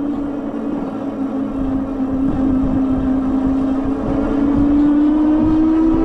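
Retrospec Valen Rev+ e-bike's 750 W motor whining steadily under full throttle on a steep climb, its pitch dipping slightly and then rising toward the end. A low rumble runs underneath.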